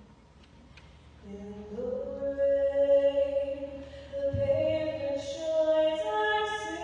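A woman singing solo: after a short pause about a second in, she comes back in with long held notes.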